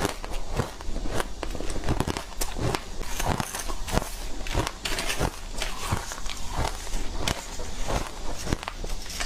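Ice being bitten and chewed: a continuous run of sharp, crisp crunches, a few a second.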